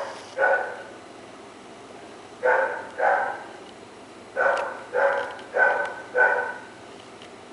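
Golden retriever barking in short single barks: two near the start, a pair about two and a half seconds in, then four in a quick run a little more than half a second apart.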